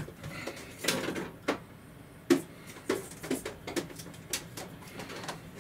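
A series of about ten irregular sharp clicks and knocks over a faint steady hiss, the loudest about two seconds in.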